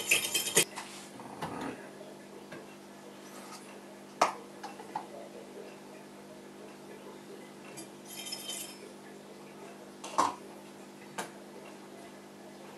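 A metal spoon stirring and clinking against a glass measuring jug of sugar water for the first half-second. Then a few separate clinks and knocks as the glassware is handled, over a faint steady hum.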